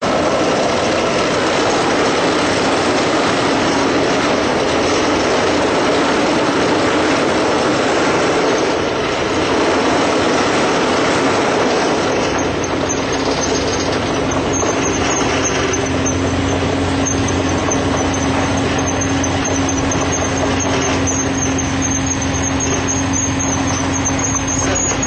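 Caterpillar excavator's diesel engine and hydraulics running steadily as it works a wick drain rig, which drives a steel probe into the ground. About two-thirds of the way through, a steady droning hum sets in.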